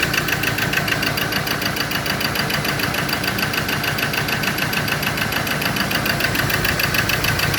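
Ford Ranger four-cylinder diesel engine running at idle with a steady, rapid ticking pulse. It is misfiring, firing only on cylinders 3 and 4 while 1 and 2 are dead.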